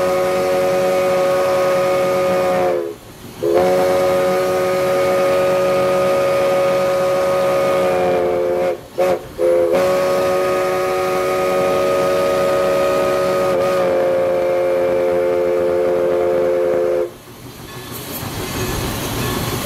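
Steam whistle of 2-6-0 steam locomotive Everett Railroad #11, heard from inside the cab, sounding several notes at once. It blows the grade-crossing signal: long, long, short, long. The last long blast cuts off about three seconds before the end, leaving the locomotive's running rumble and steam hiss.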